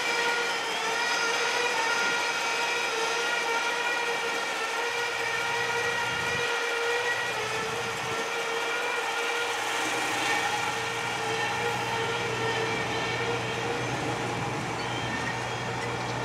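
Railroad crossing's electronic warning bell ringing steadily while the crossing lights flash, over the sound of a train; it thins out near the end as the gates go up. A low engine hum of waiting road traffic sits underneath.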